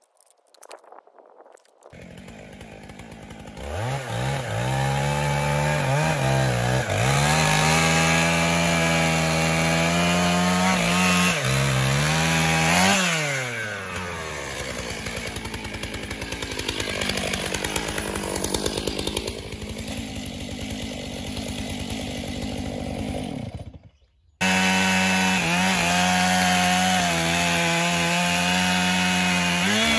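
Stihl chainsaw cutting into a large maple stump. The engine runs at high revs, its pitch dipping and recovering as the chain bites into the wood. After a near-silent start the saw comes in about two seconds in and runs loud throughout, cutting off abruptly for about a second near the end before resuming at full speed.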